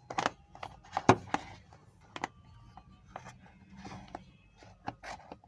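Scattered sharp plastic clicks and knocks as a Sanwa CD800a digital multimeter is handled and pushed into its protective cover-stand, the loudest about a second in.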